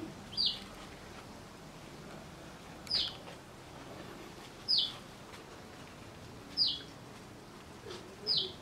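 A bird calling: a short, high, falling chirp repeated five times, about every two seconds, over quiet background.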